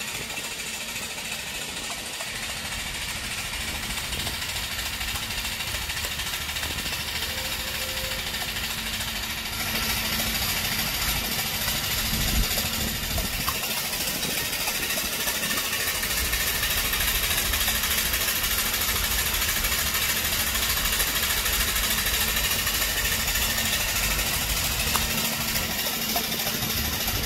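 Brass steam-locomotive cylinder block running on compressed air, with a steady hiss of exhausting air over low mechanical running noise; the hiss gets louder about ten seconds in.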